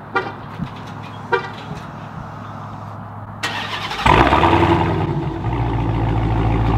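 Two short horn chirps about a second apart. About three and a half seconds in, the starter cranks and the Dodge Charger SRT Hellcat's supercharged 6.2-litre HEMI V8 catches loudly, then settles into a steady idle.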